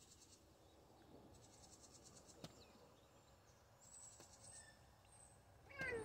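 Faint background with a few short bursts of rapid, high chirping. Near the end a tabby cat lets out a loud meow that falls in pitch, the cat yelling at birds.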